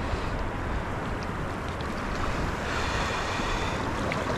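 Wind buffeting the microphone over choppy sea water lapping and sloshing, a steady rushing noise with a deep rumble.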